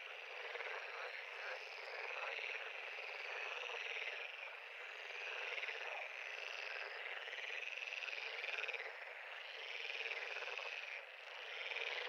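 A pond chorus of many frogs calling at once, a dense, overlapping mass of repeated calls that swells and eases in waves, with a brief lull near the end.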